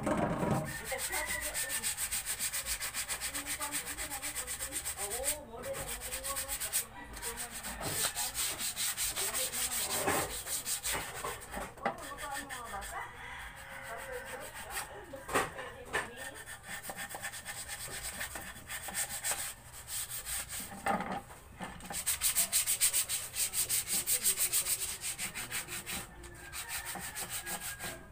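Sandpaper rubbed by hand over a wooden frame in fast back-and-forth strokes, with a few brief pauses.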